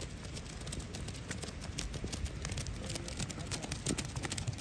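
Several runners' feet slapping and splashing through puddles on a waterlogged dirt track, an irregular patter of footfalls over the steady hiss of rain.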